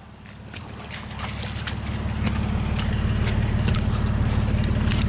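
Nissan Patrol GU ute's engine running steadily at low revs, growing louder over the first two seconds and then holding, with scattered light clicks.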